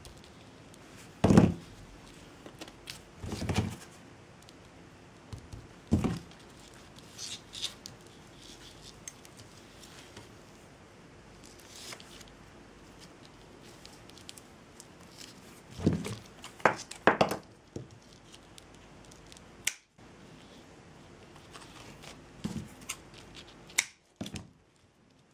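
Intermittent handling noises of jute filigree craft work: scattered short clicks, snips and rustles from jute twine, glue and small tools such as scissors and tweezers, with a quick cluster of them about two-thirds of the way through.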